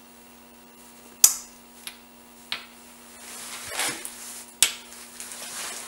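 Small steel parts clicking and scraping as a hardened drill bushing is fitted into a boring bar clamp on a lathe tool post: a few separate sharp metallic clicks and a brief scrape of metal sliding on metal.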